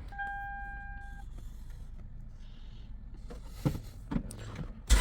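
A car's electronic warning chime sounds once for about a second, followed by low hum and a couple of soft clicks as the ignition is worked. Right at the end the Toyota MR2 Spyder's 1.8-litre four-cylinder engine starts.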